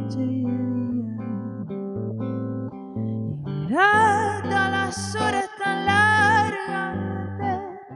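A song played on plucked guitar over a bass line. About halfway, a higher melody line slides up and is held with a wavering vibrato until near the end.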